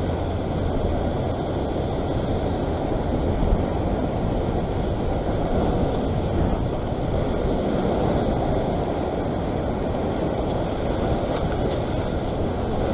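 Ocean surf washing against a rock ledge: a steady rushing, with wind on the microphone.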